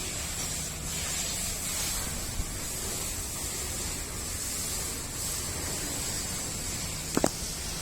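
Water spraying from a hose pipe in a steady hiss, with a single sharp click near the end.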